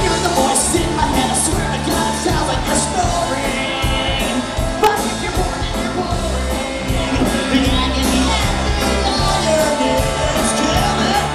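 Live rock band playing, with electric guitars, bass and drums and a lead singer singing into a microphone over them.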